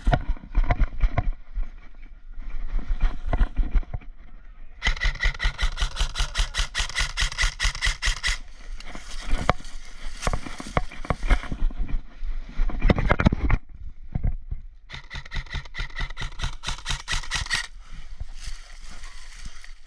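Electric airsoft rifle firing on full auto: a motor-driven gearbox buzz with rapid, evenly spaced shots. There are two long bursts, of about three seconds each, with shorter clicking stretches around them.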